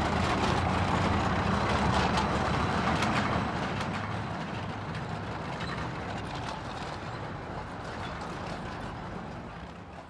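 Tracked infantry fighting vehicle running, its engine droning and its tracks clattering, growing steadily fainter as it drives off.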